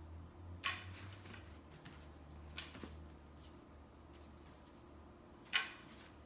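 Broom bristles swishing across a tile floor in three short brushes, the last one the loudest, with faint light taps in between and a steady low hum underneath.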